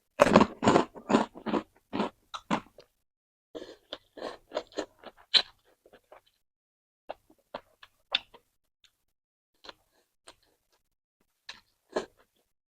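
Close-up eating sounds of a mouthful of pork noodle soup being chewed: a quick run of wet chews in the first few seconds, another run about four to six seconds in, then scattered single smacks and clicks.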